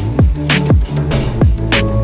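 Electronic background music with a steady beat: deep kick drums that drop in pitch, sharp snare hits and held synth notes.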